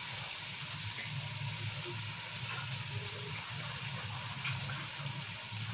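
Onion-tomato masala with whole spices and chilli flakes sizzling steadily in hot oil in an aluminium pot, with one light click about a second in.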